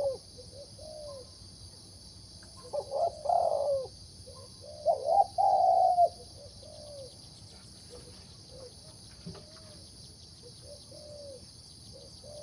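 Caged competition zebra dove cooing: two loud, rolling coo phrases about two and a half and five seconds in, with softer short coos between and after.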